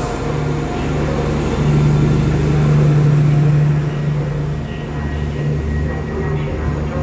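Diesel engine of an SA136-series multiple unit running under power as the train pulls out past the platform: a steady low drone, loudest a couple of seconds in.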